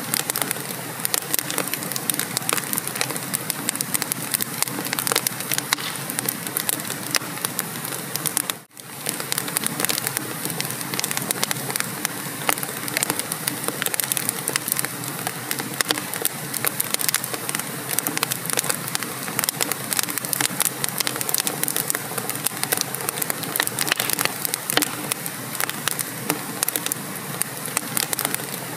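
Wood fire burning in a fireplace, crackling and popping steadily: a dense run of small sharp pops over a constant hiss. The sound briefly drops out about nine seconds in.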